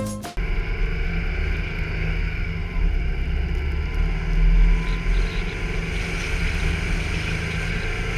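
A car driving on a snow-covered road: steady engine and road noise with a low rumble.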